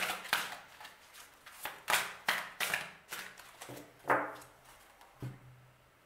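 A deck of oracle cards being hand-shuffled: a run of quick papery swishes over the first three seconds, then one louder swish about four seconds in, with only light card handling after that.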